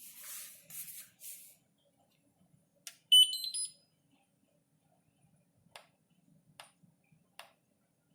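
Dishwasher control panel giving a short electronic beep melody of a few stepped notes rising in pitch, about three seconds in, with single clicks of its buttons being pressed before and after; a brief rustling hiss at the start.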